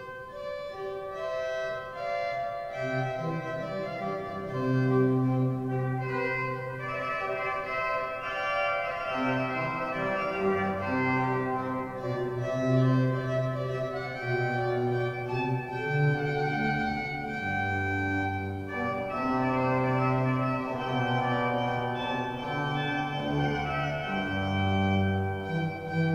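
Church pipe organ playing: held chords over a bass line that moves from note to note every second or two.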